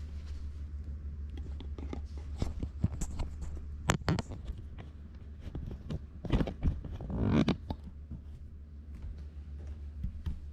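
Handling noise: scattered clicks, knocks and rustling as equipment is moved about by hand, loudest about seven seconds in, over a steady low hum.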